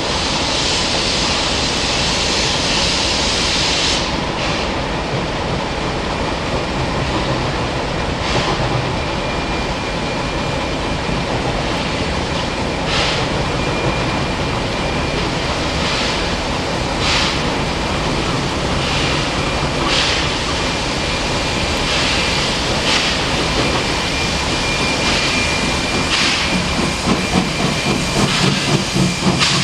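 Steam locomotive working, with a strong hiss of steam at first, then sharp exhaust puffs that come closer and closer together. A faster low rumble of beats builds near the end.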